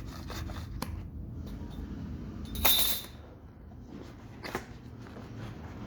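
Packaging and small parts being handled: scattered light clicks and rustles, with a louder rasping, tearing-like burst a little under three seconds in and a sharp click about four and a half seconds in.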